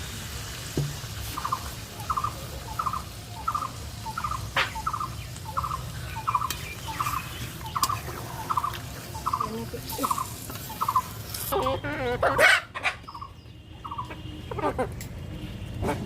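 A bird calling a steady run of short, rattling notes, about two a second, with a louder wavering call about twelve seconds in and a few more notes near the end.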